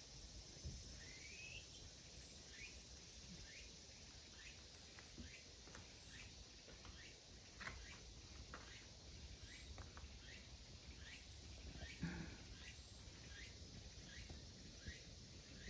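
Faint late-summer outdoor ambience: a steady high insect drone with a short chirp repeating about once a second. A soft bump near the end.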